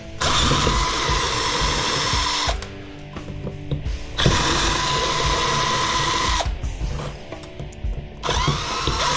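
Power drill running in three bursts of about two seconds each with a steady whine, backing out the screws that hold a PTAC fan motor's housing together. Background music can be heard in the pauses between bursts.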